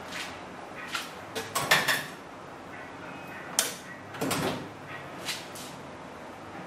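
Bench vise being worked: a string of sharp metal clacks and knocks, loudest about one and a half to two seconds in, then a single clack and a duller thump a little later.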